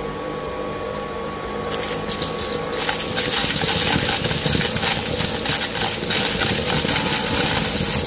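Dyson V11 Extra cordless stick vacuum running with a steady motor whine. About three seconds in it gets louder, with a dense patter of small hard pieces of debris being sucked up through the floor head.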